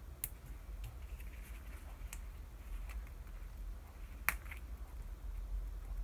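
Light clicks and soft crinkles of fingertips pressing and smoothing a sticker onto a vellum paper tag, about half a dozen small clicks with the sharpest a little past four seconds in.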